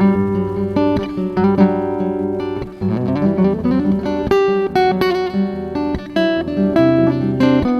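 Acoustic guitar played fingerstyle over a looped guitar part, plucked and strummed notes layered on sustained low notes. About three seconds in, a quick run of rising notes.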